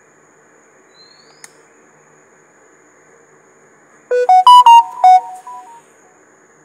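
A short electronic jingle of about five quick beeping notes, stepping up and down in pitch and lasting under two seconds, from a phone or timer alert. A faint brief rising chirp about a second in, over a steady low background hum.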